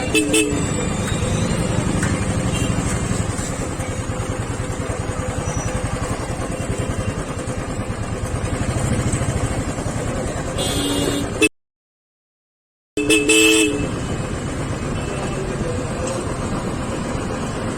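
Motorcycle engine running steadily, with vehicle horns honking at the very start and again about eleven and thirteen seconds in. Between the later horns the sound cuts out completely for about a second and a half.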